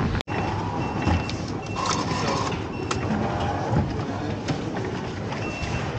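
Busy underground station concourse ambience: a steady hum of crowd noise and footsteps, with distant voices. A short, high electronic beep repeats about once a second in two runs, one early on and one near the end.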